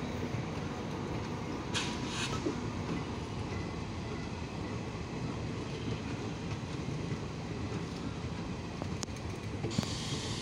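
Indian Railways passenger coaches rolling slowly past along the platform: a steady rumble of wheels on rail. Two brief hissing sounds come about two seconds in, and a brighter hiss joins near the end.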